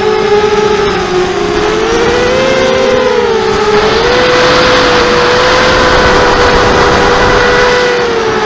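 Mini hexacopter's brushless motors and propellers whining in flight, heard through the onboard camera's microphone. The pitch wavers with throttle, climbs about four seconds in and eases near the end, over wind noise that swells while the pitch is higher.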